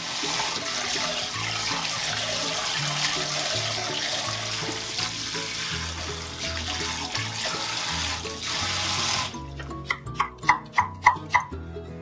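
Kitchen tap running water into a sink, a steady hiss that stops abruptly about nine seconds in, over background music. After it comes a quick run of light ticks, about four a second.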